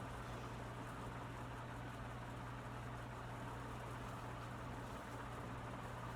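Vintage Dayton Lasko 56-inch commercial ceiling fan running steadily on speed 1: a constant low motor hum under a soft, even rush of air.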